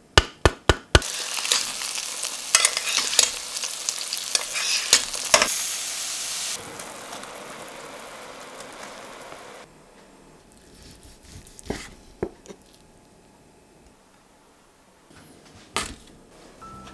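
Home-cooking sounds: a quick run of sharp taps, then food sizzling and crackling loudly in a hot pan. The sizzle drops to a softer hiss after a few seconds and then gives way to a few isolated light taps.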